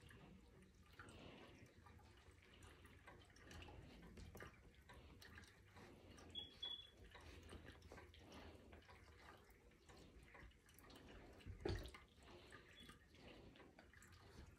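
Near silence: faint room tone with scattered small clicks, a brief faint high beep about six seconds in, and a dull thump about twelve seconds in.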